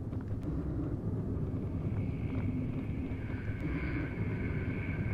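Car cabin noise while driving: a steady low rumble of engine and road, with a faint high whine joining about two seconds in.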